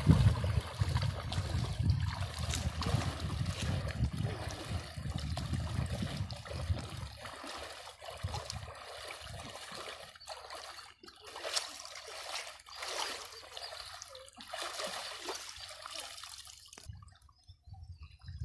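Shallow river water splashing and sloshing as a person wades and gropes along the bottom by hand for fish, with a low rumble for the first several seconds. After that come scattered splashes, and it goes quiet near the end.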